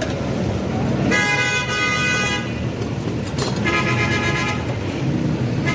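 A vehicle horn honks twice, the first about a second and a half long and the second shorter, over steady street traffic noise.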